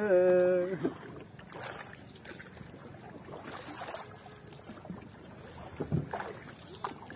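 Faint water splashing and lapping around a small raft being moved across a pond, with a few soft splashes scattered through it.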